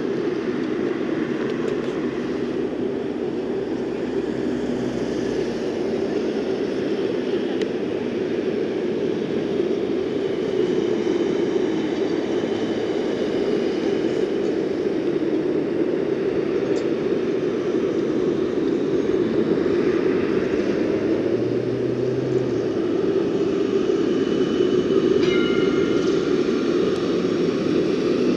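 A Melbourne D1-class (Siemens Combino) tram running along its street tracks amid steady city road traffic, which grows slowly louder.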